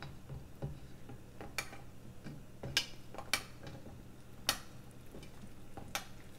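A spoon or spatula tapping and knocking against the pan while balushahi are turned over in hot sugar syrup: about six sharp clicks, a second or so apart, over a faint steady hum.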